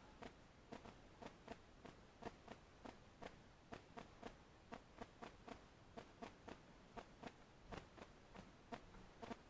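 Faint, irregular taps, about two to three a second, of birds pecking at seed on a feeder.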